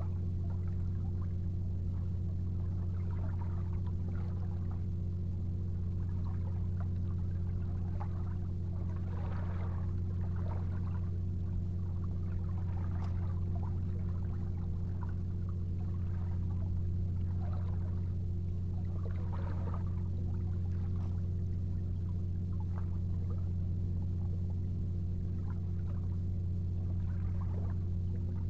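A steady low hum with a clear pitch and overtones, unchanging throughout. Faint, irregular soft noises come over it, a little stronger around a third and two-thirds of the way in.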